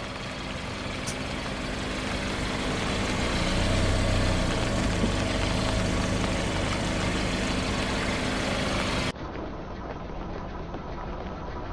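A car engine running steadily at low revs, getting a little louder about four seconds in. About nine seconds in it cuts abruptly to another recording of a similar running engine, quieter and duller.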